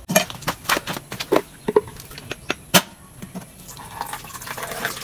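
A husked coconut being cracked open: about ten sharp knocks on the shell over the first three seconds, then coconut water pouring into a plastic pitcher from about four seconds in.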